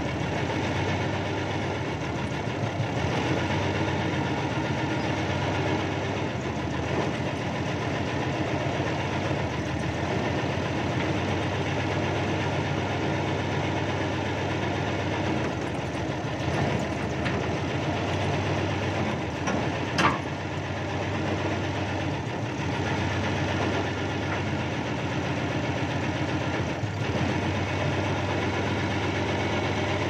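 Backhoe's diesel engine running steadily, heard from inside the cab while the machine works. A brief sharp sound stands out about two-thirds of the way in.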